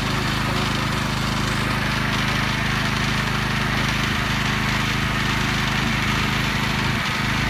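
Small gasoline engine of a pressure washer running steadily at an even speed, with a constant hiss over the engine note.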